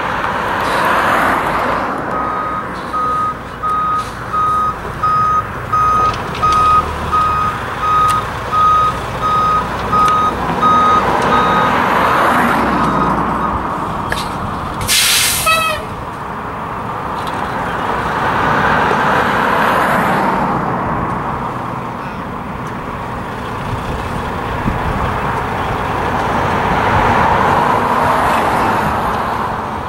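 Dump truck's reversing alarm beeping evenly, about one and a half beeps a second, for some ten seconds as the truck backs up, then a short sharp hiss of its air brakes at about the halfway point. The truck's diesel engine runs underneath throughout.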